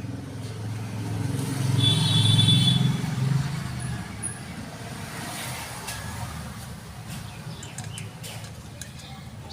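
A motor vehicle passing by: a low engine rumble swells to its loudest about two seconds in and then slowly fades. A brief high chirping tone sounds near the loudest point.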